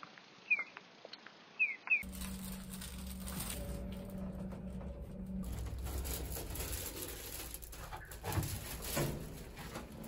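A few quick high bird chirps for the first two seconds. Then an abrupt change to a steady low hum and rumble inside a lift, which stops about five seconds in, with plastic shopping bags rustling in hand.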